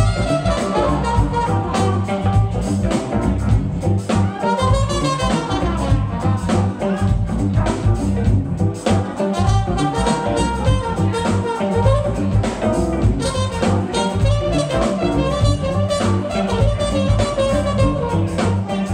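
Live funk band playing an instrumental groove: horns over a steady drum-kit beat and bass.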